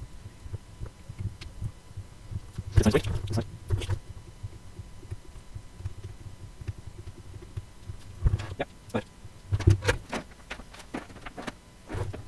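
Handling noise at a soldering bench: small clicks and crinkles as a circuit board is moved about on bubble wrap during soldering, in a few clusters (around three seconds in, twice between eight and ten seconds, and near the end), over a low steady hum.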